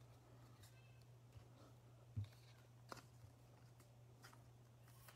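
Near silence: a steady low hum with a few faint soft ticks as trading cards are handled.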